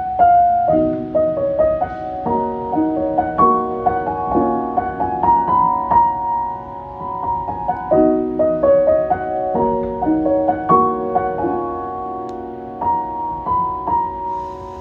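Solo piano playing a melody over chords, each note struck and left to ring.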